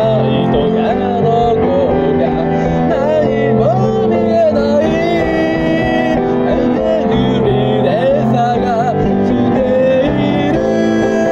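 A person singing over their own instrumental accompaniment. The voice stops about ten seconds in, leaving only the instrument.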